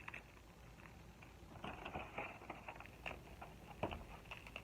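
Faint scattered clicks and dry rustling from handling a bundled dried sage smudge stick, with a few sharper ticks near the end.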